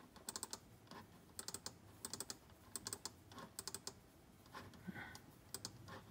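Faint typing on a computer keyboard, in short runs of keystrokes.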